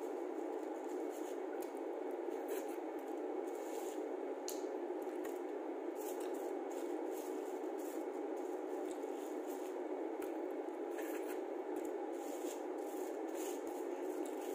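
Fingers picking meat out of a cooked crab's shell: scattered short clicks and small cracks of shell, over a steady background hum.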